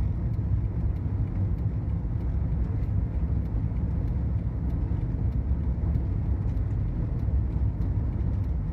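A car driving on a gravel road: steady rumble of tyres and road noise, heard from inside the moving car, with faint light ticks about twice a second.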